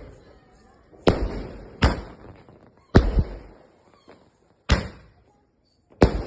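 A 30-shot firework cake firing, five loud bangs at uneven intervals of about one to two seconds, each trailing off in an echoing tail.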